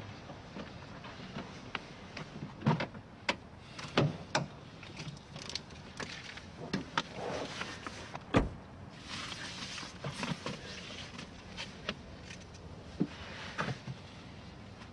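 Irregular sharp knocks and clicks, the loudest about three, four and eight seconds in, with a brief rustle around nine seconds.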